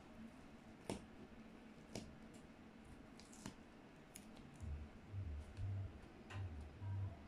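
Paper masking tape being peeled off the edge of a painted board: faint, scattered clicks and crackles. From about two-thirds in, low muffled thumps of handling join in.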